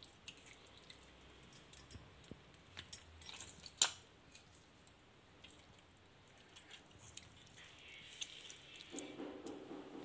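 A hand squeezing and crushing tomatoes in tamarind water in a stainless steel bowl: faint wet squelches with scattered light clicks against the bowl, the sharpest about four seconds in. A faint low hum comes in near the end.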